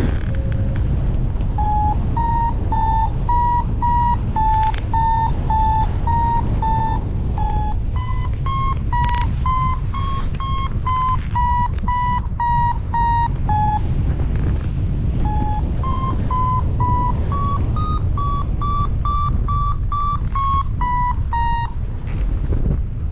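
Paragliding variometer beeping in short tones, about two a second, signalling lift; the pitch steps up and down with the climb rate, pauses briefly past the middle, then climbs higher. Strong wind rumbles on the microphone underneath.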